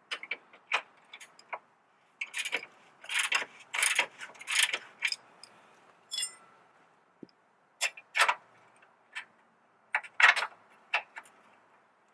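Irregular metallic clinks and knocks of hand tools being handled and fitted, a 22 mm wrench and a cheater bar on the lower control arm fasteners, some with a brief metallic ring.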